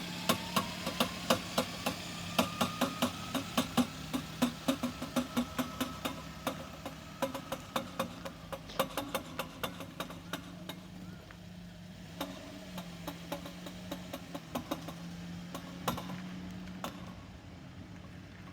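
Suzuki MH23 Wagon R making a loud, rhythmic knocking over a steady hum, at first about two and a half knocks a second, then slowing to about one a second and growing fainter as the car slows; a whine rises early on. This is an abnormal drivetrain noise that the owner suspects is the CVT.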